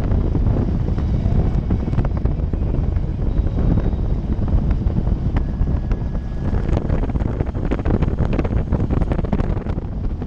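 Wind buffeting the microphone of a moving motorcycle, over a steady low rumble of engine and road noise.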